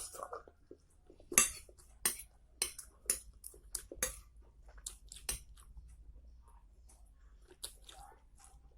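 Cutlery clinking and scraping against a dish while eating noodles, about nine sharp clinks at irregular intervals, with quiet chewing between them.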